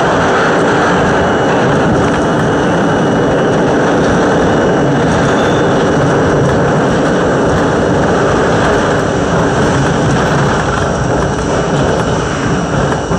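R42 New York subway train running through a tunnel, a loud steady rumble of wheels on rail heard from inside the front car. The sound starts to waver near the end.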